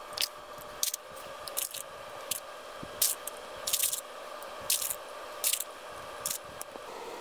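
Repeated short scraping strokes, about one every half second to a second, as a stick or spatula scrapes the last thick liquid silicone rubber out of a mixing container.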